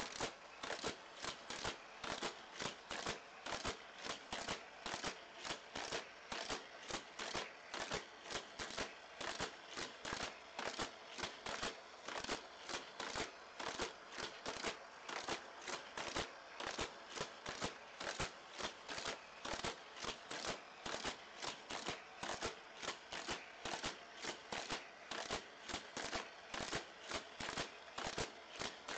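Hot Wheels Roto Revolution playset with a die-cast What-4-2 car lapping its loops nonstop, the car shot through the motorized boosters again and again. It makes a fast, even rhythm of plastic clattering bursts, about three a second.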